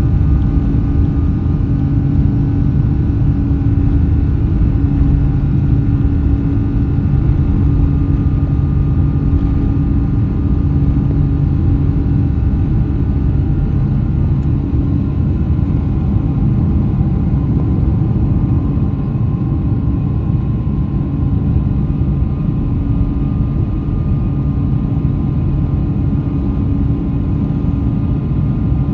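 Steady engine drone inside the cabin of a Boeing 777-300 with Rolls-Royce Trent 800 engines: a loud low rumble with a steady hum on top.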